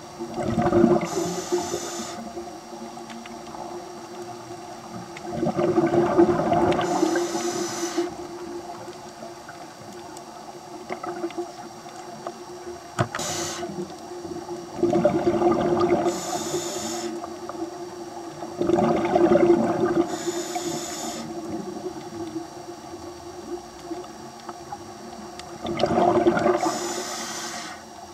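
Scuba diver breathing underwater through a regulator: bubbling exhalations, each followed by a short hiss, repeating every few seconds. There is one sharp click about halfway.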